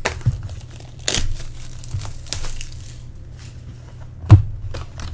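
Packaging of a box of 2010 Bowman Draft baseball cards being torn open and handled: crinkling and tearing with scattered clicks, and a sharp knock about four seconds in.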